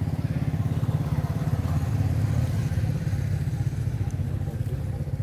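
An engine running steadily off-camera, a low rumble with a rapid even pulse.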